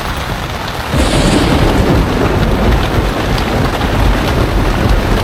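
Thunderstorm: heavy rain and wind with a deep rumble of thunder that swells about a second in and keeps rolling.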